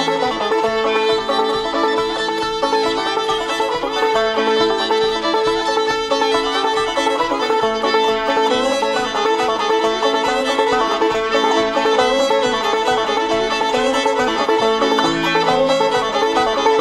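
Old-time tune played on clawhammer banjo and fiddle, a steady instrumental with held fiddle notes over the banjo's picking.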